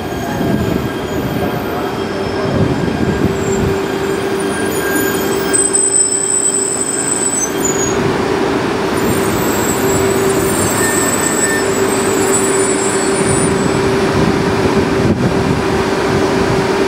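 E3 series Shinkansen train cars rolling slowly past, with a steady low hum and wheel-on-rail rumble. Faint high wheel squeals come and go in the middle.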